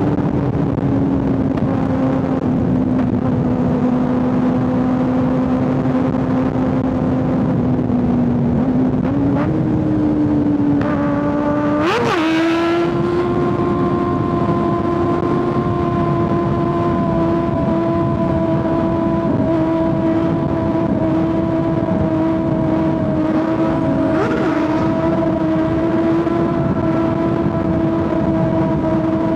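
Kawasaki ZX-6R 636 inline-four running at steady cruising revs under wind noise, with a quick sharp rev spike about twelve seconds in, after which the engine holds a higher steady pitch.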